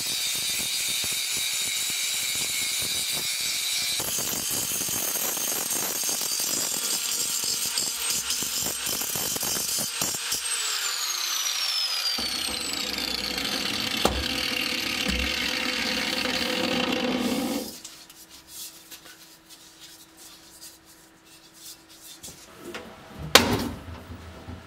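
Angle grinder grinding rust off a steel helmet shell: a steady high whine over harsh grinding noise, with one falling whine about ten seconds in. It stops suddenly about three-quarters of the way through, leaving quieter handling knocks and one sharp click near the end.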